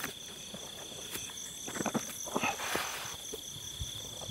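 Steady high chirring of crickets and other night insects, with scattered rustles and light knocks from fish being handled into a plastic basket in the grass.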